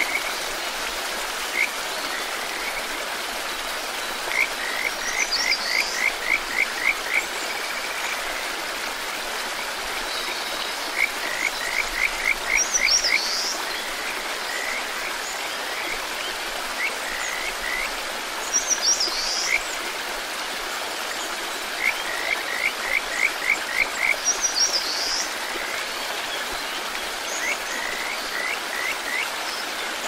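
Steady rush of a mountain stream and waterfall, over which a frog calls in runs of about seven quick notes, repeated every few seconds. A bird gives a short high call every five or six seconds.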